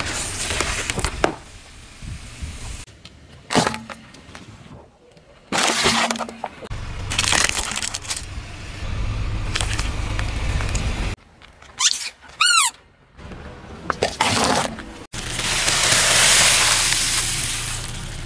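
Things being crushed under a car tyre in a series of short cuts: sharp cracks, pops and crunching, with stretches of tyre rolling noise. About two-thirds of the way through there is a short squeal falling in pitch.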